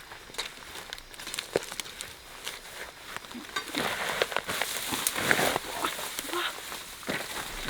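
Dry vegetation rustling and crackling irregularly, busier from about four seconds in.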